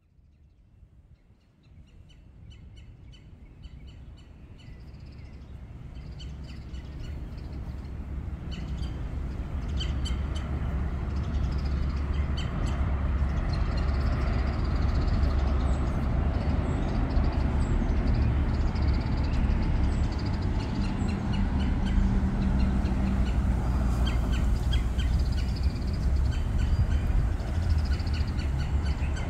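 Street-side ambience fading in over the first ten seconds or so: a steady low rumble of road traffic, including a garbage truck, with birds chirping over it. A steady low engine hum stands out for a few seconds past the middle.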